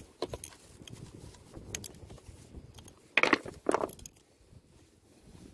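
Handling noises as a fish is threaded onto a rope stringer among riprap rocks: scattered small clicks and rattles, with two louder scraping rustles a little past halfway.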